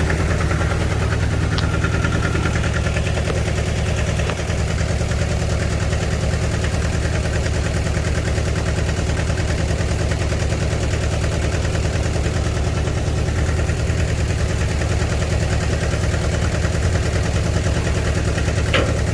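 Farm tractor engine running steadily at idle, with a couple of brief clicks, one near the start and one near the end.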